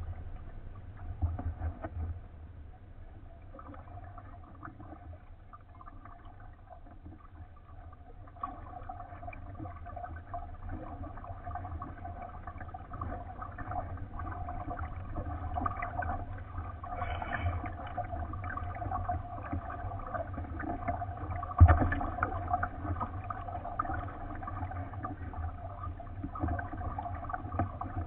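Water gurgling and lapping against a kayak's hull, over a faint steady hum, with a single sharp knock about three-quarters of the way through.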